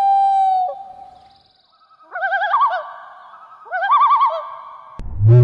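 Bird calls: a loud held whistle, then two warbling, wavering phrases about a second and a half apart. Near the end a sudden click begins a different, low, loud sound.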